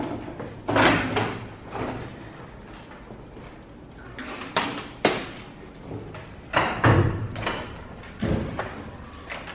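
A series of irregular knocks and thuds, about nine in all. The heaviest, deeper thumps come about a second in and again around seven seconds in.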